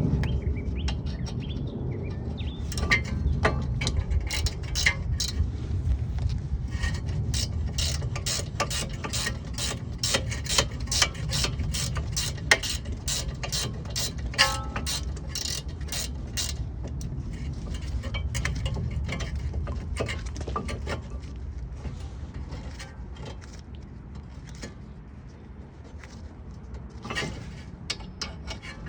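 Hand socket ratchet clicking as a brake-assembly bolt is turned out. A fast, even run of pawl clicks lasts about fifteen seconds, then gives way to slower, scattered clicks, with a short burst again near the end.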